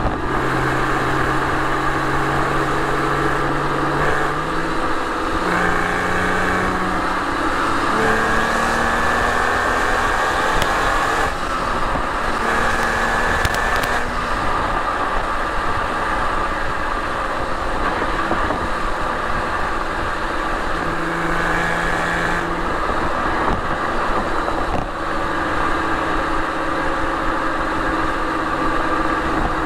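Porsche 911 Carrera 4's 3.6-litre flat-six exhaust, heard close to the tailpipes, at highway speed. The engine note steps up and down in pitch through the first half with brief breaks at gear changes, then settles into a steadier cruise, with another shift near the end.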